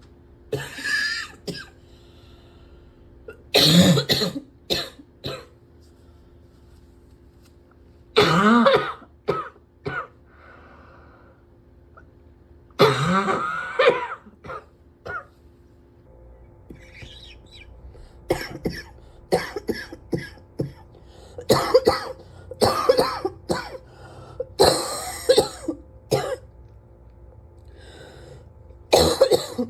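A person coughing over and over in harsh fits they cannot stop. The coughs come in clusters of several every few seconds, and grow more frequent about two-thirds of the way through.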